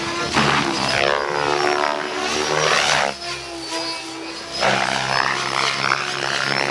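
Mikado Logo 700 electric RC helicopter in 3D aerobatic flight: the rotor and motor whine sweeps up and down in pitch as it flips and passes. The sound dips about three seconds in, then comes back loud a second and a half later.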